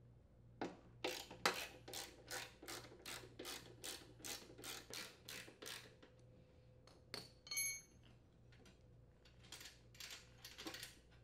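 Ratchet handle clicking about three times a second as it backs a bolt out of a lawn mower's wheel adjuster assembly, with the nut held by a wrench. A short metallic ring a little past the middle, and a few more clicks near the end.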